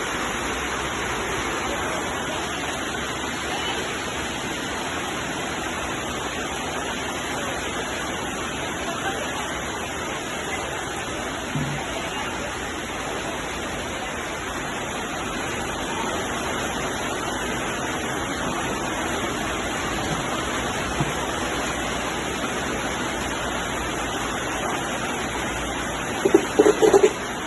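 Steady rain falling, an even hiss with no letup. Near the end a few short, louder sounds stand out over the rain.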